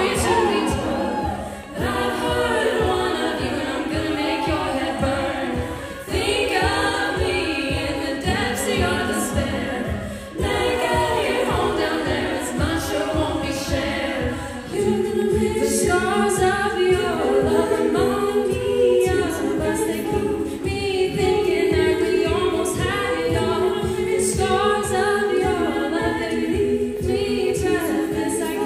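Treble-voiced a cappella group singing a pop song in close harmony, with a lead voice over sustained backing chords. A beatboxer keeps a steady beat of kick thumps and hi-hat clicks, and the singing pauses briefly between phrases.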